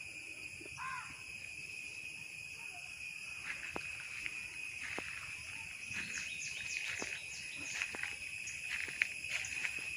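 Steady high-pitched insect chorus, with one short bird note about a second in. Scattered sharp clicks come in from about three and a half seconds on.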